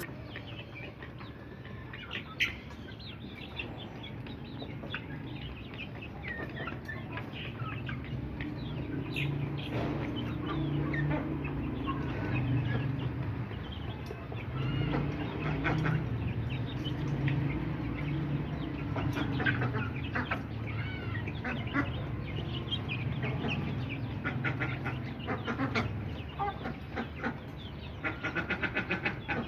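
Domestic ducks calling, with many short calls and chirps throughout and a quick run of quacks near the end.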